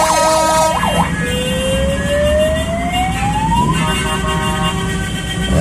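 An emergency-vehicle siren yelps quickly up and down for about the first second, then gives one slow rising wail. It is heard over several car horns held on steady tones and the low rumble of slow-moving traffic.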